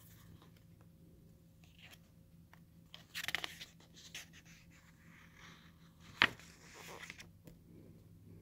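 Paper pages of a book being handled and turned: a short rustle about three seconds in, then a sharp tap and more rustling a little after six seconds as the page goes over.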